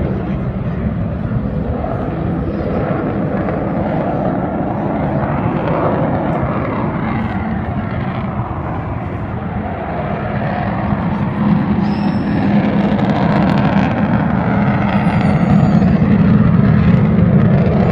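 Avro Vulcan XH558's four Rolls-Royce Olympus turbojets making a flypast: a loud, steady jet rumble whose tone slowly shifts and which grows louder in the second half.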